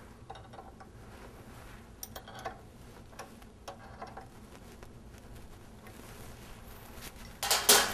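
A wrench tightening the bolt that fixes a stainless-steel V-shell onto a lab blender's shell drive shaft: faint, scattered light metal clicks, with one louder brief noise near the end.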